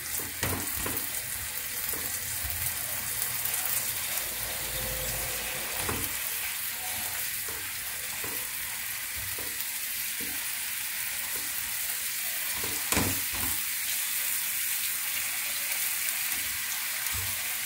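Chicken breast rolls frying in oil with garlic and grated onion in a nonstick frying pan, a steady sizzle, with a few knocks of the silicone tongs against the pan as the rolls are turned.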